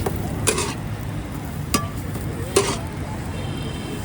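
Metal spatula clinking against a pan of frying daal anda tikkis, three sharp clinks, the second ringing briefly, over a steady low rumble.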